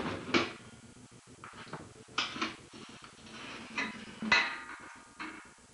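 Broken chair clattering: a series of separate knocks and rattles as its loose parts bang about on the floor, the chair having come apart with no screws holding it together.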